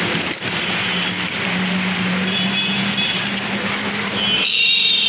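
Street traffic moving through floodwater: a steady rush of noise under a low steady hum. High-pitched beeps sound around the middle and again near the end.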